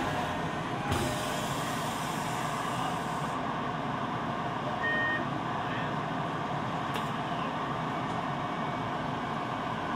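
Inside a Ginza Line subway car running through the tunnel: a steady rumble of the train on the rails. A brief high tone sounds about five seconds in, and a sharp click comes about two seconds later.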